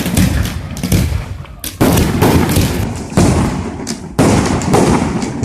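Fireworks going off: several sharp bangs about a second apart, each trailing off into crackle and rumble.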